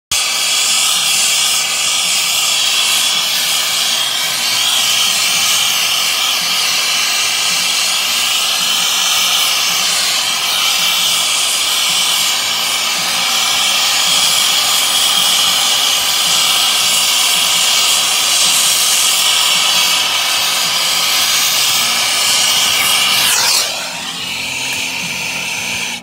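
Loud, steady hiss of refrigerant gas rushing out through the service port and hoses as an air-conditioning system's refrigerant is recovered, with a faint wavering whistle in it. Near the end a whistle sweeps down in pitch and the hiss falls away.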